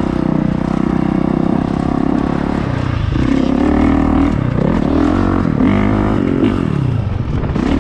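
Honda CRF four-stroke motocross bike engine running under load as it is ridden. It pulls steadily for the first couple of seconds, then its pitch dips and climbs several times as the throttle is rolled off and back on.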